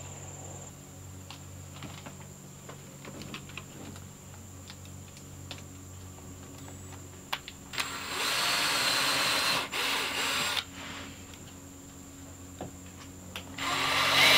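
Cordless drill pre-drilling screw holes through a steel strap hinge into a wooden cabinet door: two short runs, about eight and ten seconds in, and another starting near the end, each a steady motor whine. Before them, light clicks and taps as the hinge is held and positioned.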